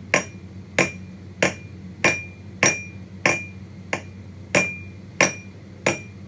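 Glass bottle being knocked at a steady pace, about ten sharp taps, each with a short glassy ring.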